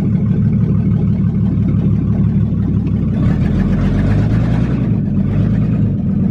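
Chevy pickup engine running with a loud, steady low rumble, its exhaust open because the Y-pipe and catalytic converters are off, heard from inside the cab as the truck rolls slowly.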